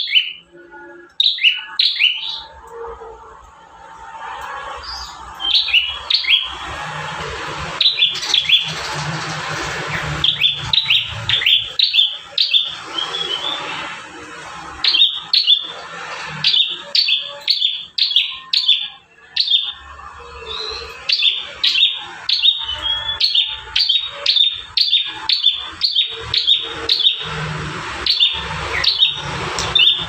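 Prinia (prenjak) calling actively: quick runs of short, sharp, high chirps over a steady hiss.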